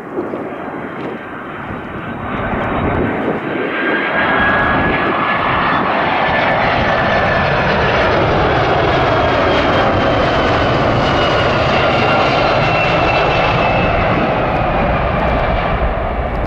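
Jet engines of a Boeing 767-300ER airliner, Pratt & Whitney PW4000 turbofans, passing at close range. The engine noise swells over the first few seconds, then holds loud and steady, with a thin whine that slowly falls in pitch as the aircraft goes by.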